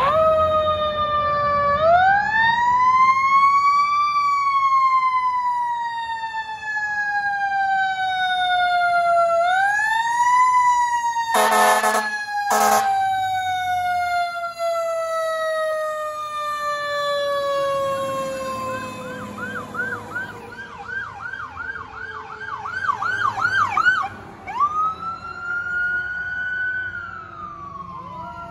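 Fire engine siren: a mechanical Q siren winds up, coasts slowly down in pitch and is wound up again, with two short air horn blasts about twelve seconds in. After that a fast warbling electronic yelp sounds for several seconds, followed by one rising and falling wail.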